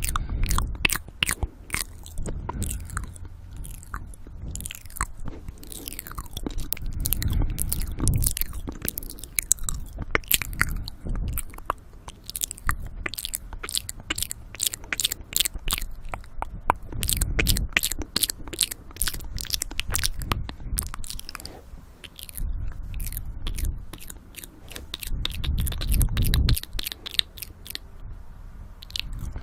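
Close-miked ASMR mouth sounds: a dense run of wet clicks and smacks of lips and tongue, with heavy breaths into the microphone swelling every several seconds.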